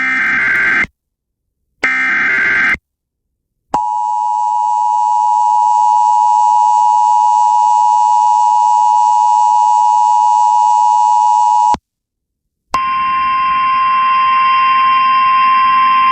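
Emergency Alert System broadcast tones: the last two short screeching SAME data header bursts, then the steady two-tone EAS attention signal (about 853 and 960 Hz) for about eight seconds. After a one-second gap comes a single steady tone over hiss for about four seconds.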